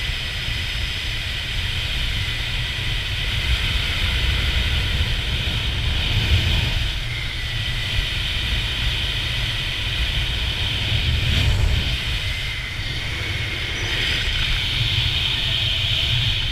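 Wind rushing over the camera's microphone during a parachute descent under an open canopy: a steady low rumble with a hiss, swelling and easing slightly.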